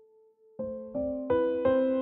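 Instrumental music: a faint held note fades, then piano-like keyboard notes come in about half a second in. They are struck in an even rhythm of roughly three a second and grow louder.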